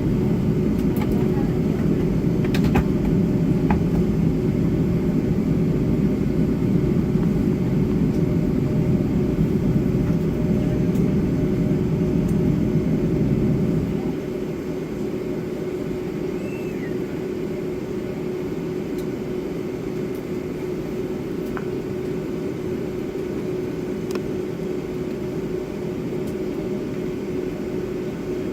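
Steady cabin noise inside a Boeing 757-300 airliner: a rumble of engines and air systems with a constant hum, easing a little in its low end about halfway through. A few faint clicks sound over it.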